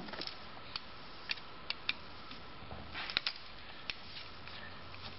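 Flathead screwdriver working the terminal screw on the side of an old electrical receptacle: light, scattered metal clicks and scrapes, with a short cluster of clicks about three seconds in.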